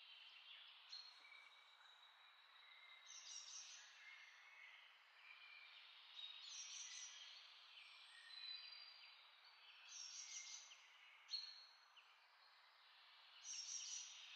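Faint birdsong: short whistled chirps at many different pitches over a steady hiss.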